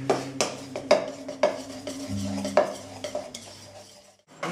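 A knife stirring a mixture in a bowl, the blade clicking against the bowl in quick irregular strokes, over a steady low hum.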